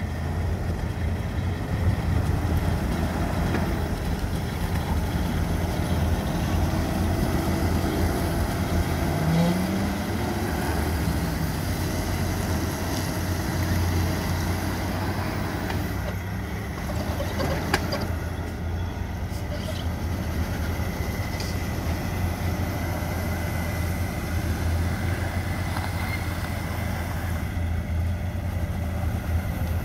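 Off-road vehicle engines idling steadily with a low hum.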